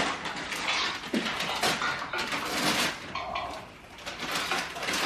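Wrapping paper crinkling and tearing in quick irregular rips as a present is unwrapped.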